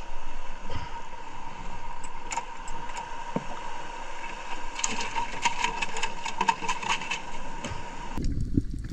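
Underwater sound: a steady mechanical whine with a crackle of sharp clicks, the clicks growing thick about five seconds in. The whine cuts off near the end, giving way to a low rumble.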